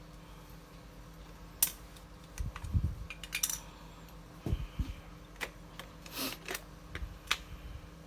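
A camera body and small tools being handled on a repair bench: scattered clicks, taps and a few light knocks, with a short scrape about six seconds in.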